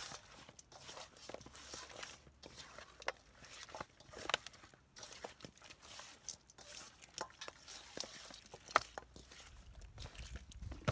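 A bare hand mixing chopped pig head pieces with dry seasoning in a stainless steel bowl: irregular wet squishes and clicks as the meat and bone shift against each other and the metal.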